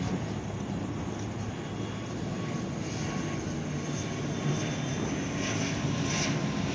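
ATR 72-600 twin-turboprop airliner on approach to land, its engines and propellers making a steady drone that grows a little louder near the end.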